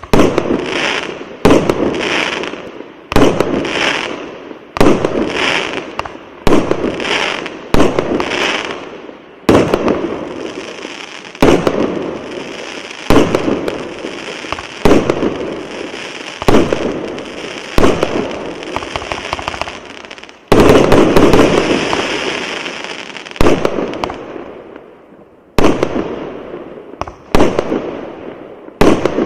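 Fireworks going off: a sharp bang every second and a half to two seconds, each trailing off in fading crackle, with unbroken crackling through the middle and the loudest burst about two-thirds of the way in.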